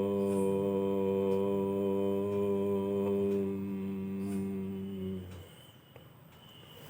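A single low voice chanting Om, holding the closing 'mmm' as a steady hum at one pitch, which stops about five seconds in.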